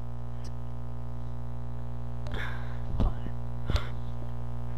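Steady low electrical hum in the recording, with a brief soft rush of noise about two and a half seconds in and two small knocks about three and four seconds in.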